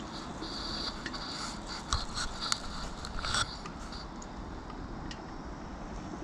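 Wind rushing over a body-mounted camera on a moving giant swing. Between about two and three and a half seconds in come a cluster of clicks and short metallic rattles from the swing's steel bar and carabiners.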